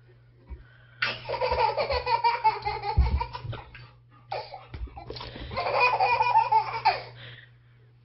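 A toddler's belly laughter in two long bursts of rapid, pulsing giggles, the first starting about a second in and the second about four seconds in.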